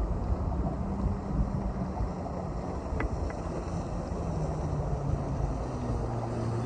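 Low, steady engine hum, with wind rumbling on the microphone and a couple of faint clicks about three seconds in.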